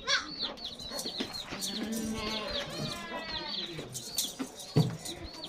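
Small birds chirping rapidly and continuously among goats, with a goat bleating once about two seconds in. A short thump near the end.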